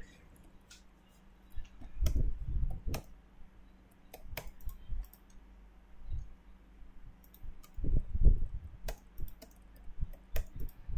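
Computer mouse clicks and keyboard key presses at an irregular pace, with two clusters of louder, dull knocks about two seconds in and again around eight seconds in.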